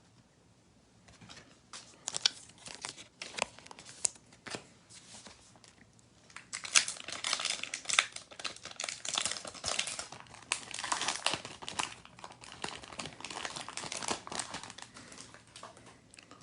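A trading-card pack's plastic wrapper being crinkled and torn open. There are scattered crackles at first, then a long, dense stretch of crinkling from about six seconds in.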